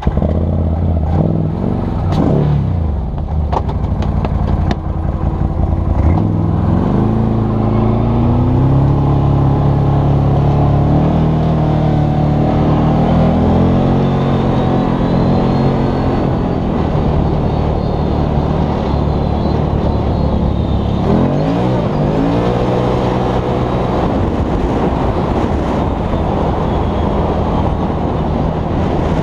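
Can-Am Maverick 1000 side-by-side's V-twin engine heard from the cab under hard throttle on dirt. The engine note climbs sharply as it accelerates, about six seconds in and again past twenty seconds, then holds high while it runs flat out.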